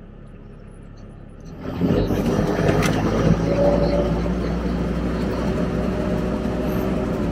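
Sherp ATV's Kubota four-cylinder diesel engine revving up from a low idle to a loud, steady run about a second and a half in as the vehicle gets under way in the water, heard from inside the cab. A sharp click comes about a second later.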